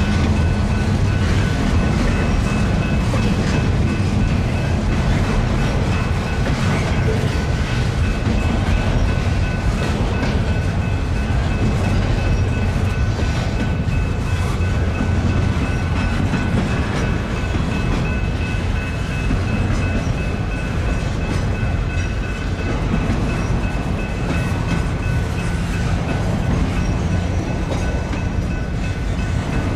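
Intermodal container cars of a long freight train rolling steadily past, wheels clicking over the rail joints, with a faint steady high whine over the rumble.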